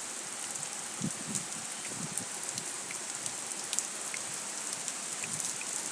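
Heavy rain pouring down: a steady hiss with many individual drops ticking sharply on hard surfaces.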